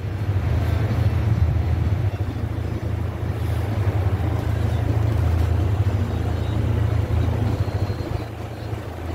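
A vehicle's engine running steadily at low speed as it creeps along behind a bear: a steady low hum with road and wind noise over it. It eases off slightly near the end.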